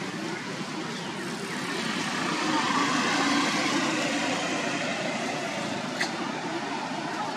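Steady outdoor background noise that swells for a couple of seconds a few seconds in, with one faint click near the end.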